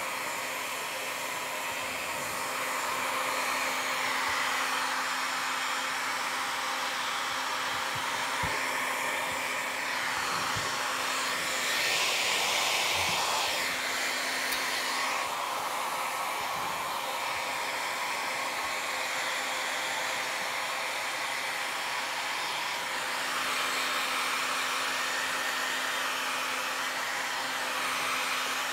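Handheld hair dryer blowing, a steady rush of air with a steady hum beneath it; the rush grows louder and brighter for a few seconds about twelve seconds in.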